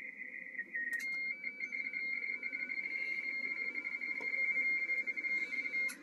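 RTTY data signal from a Yaesu HF transceiver's speaker: a warbling tone near 2 kHz that flicks rapidly between two close pitches as the signal shifts between mark and space, over faint band hiss, with a click and a brief break about a second in.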